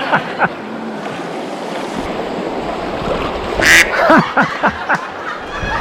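Creek water rushing steadily over rocks, with a sharp splash-like burst about two-thirds of the way in, followed by a few short knocks and brief squawk-like sounds.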